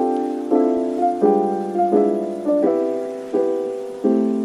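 Background music: piano chords struck in a steady, even rhythm, a new chord about every 0.7 seconds, each fading away before the next.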